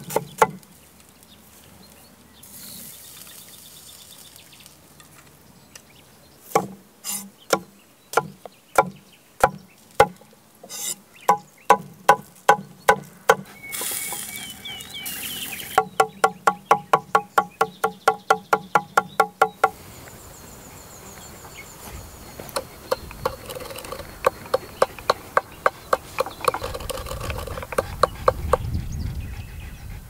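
Sharp knocks with a ringing pitch. They come scattered at first, then in a fast, even run of about four a second, then give way to fainter, quicker clicks over a low rumble near the end.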